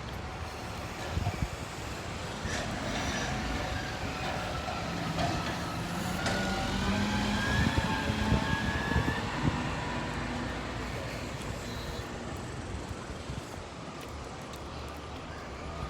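A passing motor vehicle: a low engine hum with a gliding whine, getting louder toward the middle and then fading.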